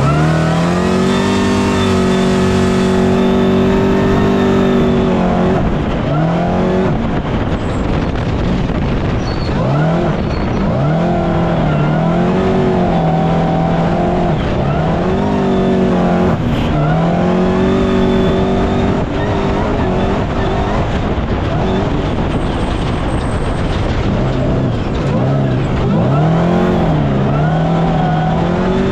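Off-road race vehicle's engine running at high revs, its pitch dropping sharply and climbing back several times as it eases off and accelerates again.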